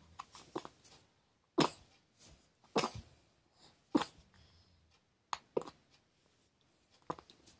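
A baby making short, sharp breathy sounds with the mouth, about six of them spaced roughly a second apart.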